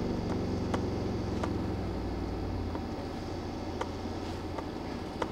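An RBH 21-inch subwoofer playing a slow downward frequency sweep at high power: a deep hum that steps lower in pitch and gradually eases off. It is a quality-control sweep to check the enclosure for air leaks at large driver excursion. Faint scattered ticks come from a door rattling under the bass.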